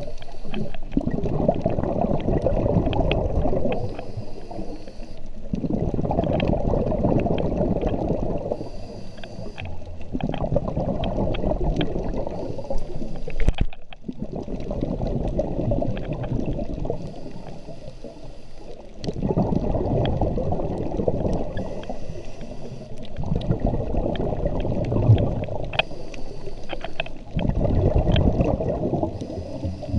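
A scuba diver breathing through a regulator, heard from the diver's own camera underwater. Long bursts of bubbles rumble and gurgle on each exhale, and a short hissing inhale comes between them, about one breath every four to five seconds.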